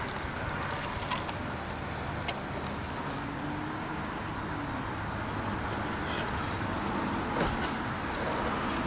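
Steady outdoor background noise, with light wind on the microphone.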